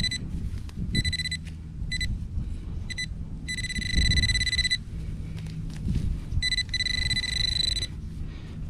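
A metal detector sounding a steady high-pitched tone that switches on and off as it is passed over a buried target in a dug hole: several short beeps, then two longer tones of over a second each. Low handling noise runs underneath.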